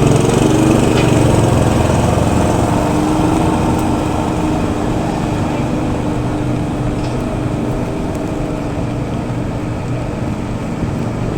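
A small engine running steadily, fading slowly.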